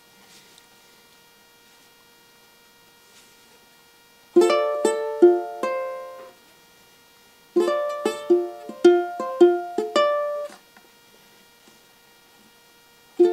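Ukulele fingerpicked: after about four seconds of quiet, two short phrases of plucked notes separated by a brief pause, then quiet again. The strings buzz against the frets on some notes.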